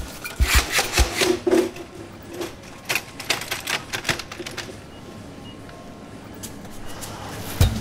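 Rapid clicks and clatter of a foldable promotional display being unfolded and its shelves and frame parts snapped into place, thickest in the first few seconds and thinning out later.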